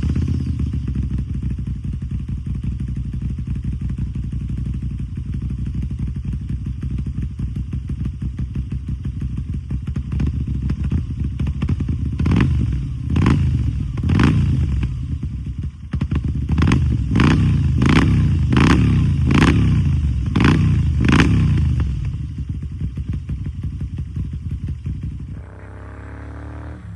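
Moto Guzzi V7's V-twin engine idling, then revved in short throttle blips through its exhaust: two about halfway in, then about seven in quick succession. Near the end the engine sound drops away to a quieter one.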